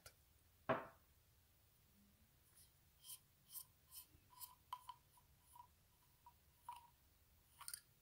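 Copper threads of a Lumintop FW21 X9L flashlight's tail cap scraping as the cap is unscrewed by hand. About ten short, faint scrapes and ticks, some with a thin squeak, come in uneven strokes.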